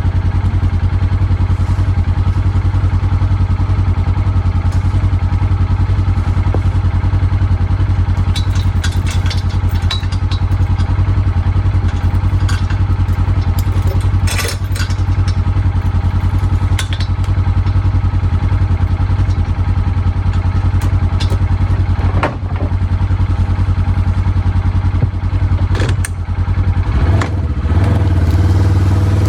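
An engine running steadily at one speed, with scattered clatter and knocks over it.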